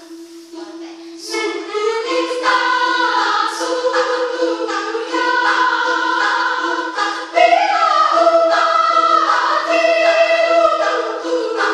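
Women's choir singing in several parts. The voices come in more fully about a second in and grow louder around seven seconds in.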